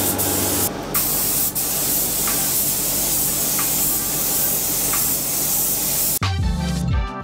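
Compressed-air spray gun with a gravity-feed paint cup, spraying paint in a steady loud hiss, with two brief pauses near the first second and a steady low hum underneath. Music cuts in about six seconds in.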